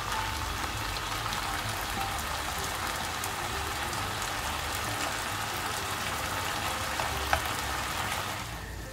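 Diced chicken sizzling steadily in oil in a nonstick frying pan as the meat starts to release its juices. There is one brief click about seven seconds in, and the sizzle fades just before the end.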